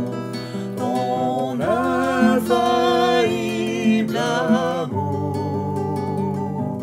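A worship song sung to acoustic guitar accompaniment: a voice holds long notes with vibrato over the guitar.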